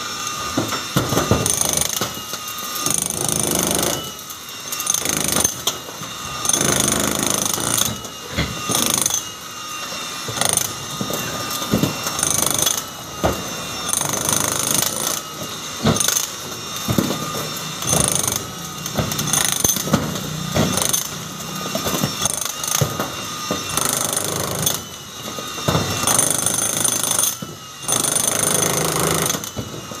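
A handheld electric demolition hammer (jackhammer) chiselling into a concrete wall. It hammers in bursts of a few seconds, broken by short pauses.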